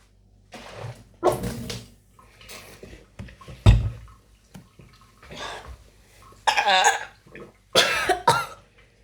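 A person coughing and burping after gulping down a large bottle of Coke: a string of short throat sounds, the loudest a deep burp about four seconds in.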